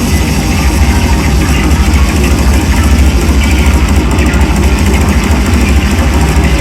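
Loud live drone-noise music: a dense, unbroken wall of distorted noise over a heavy low rumble, with a fast rapid flutter running through it.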